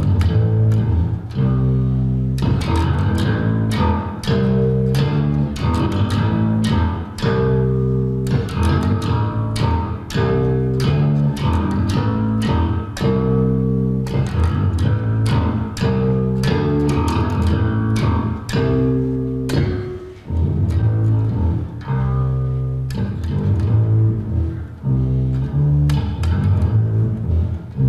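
Electric bass guitar played in a continuous riff: a fast, unbroken stream of sharply plucked notes, with a brief pause about twenty seconds in.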